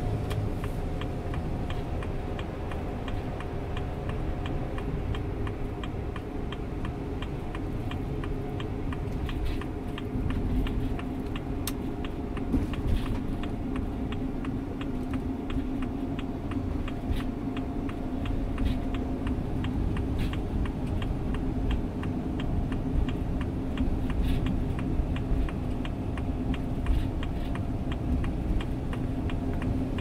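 A steady low rumble with a constant hum, under a fast, even ticking and scattered sharp chirps from a large flock of small birds swarming overhead.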